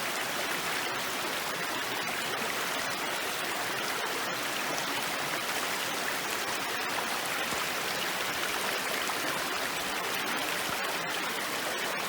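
Mountain river rushing steadily, an even unbroken flow of water.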